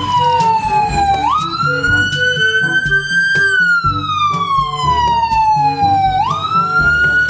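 Ambulance siren wailing: one pitched tone that slides slowly down, jumps quickly back up and slides down again, twice, over background music with a steady beat.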